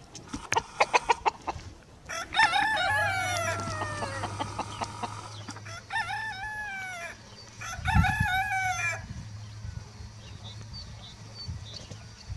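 Pavlovskaya roosters crowing three times, the first crow long and falling in pitch, the next two shorter. A quick run of sharp pulses comes just before the first crow.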